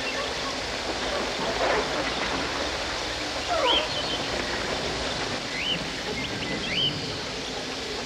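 Jungle nature recording: a steady rushing hiss of background ambience with several short, hooked bird calls over it, a few from about halfway on and a pair near the end.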